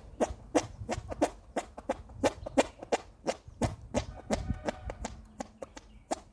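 Armpit farts: a hand cupped under the arm and pumped, giving a quick run of short squelching pops, about three or four a second.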